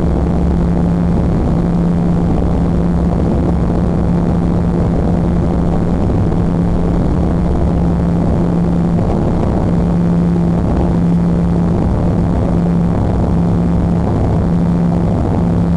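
Airliner engines at takeoff power, heard from inside the cabin: a loud, steady drone with a constant low hum over a rumble, through the takeoff roll and liftoff.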